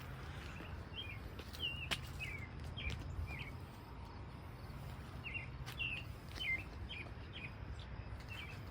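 A small songbird chirping, a run of short, quick notes, then a second run after a brief pause, over a steady low outdoor rumble.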